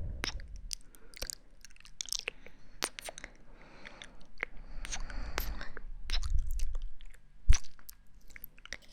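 Close-miked ASMR trigger sounds: irregular crackles and clicks right at the microphone, with one heavy thump about seven and a half seconds in.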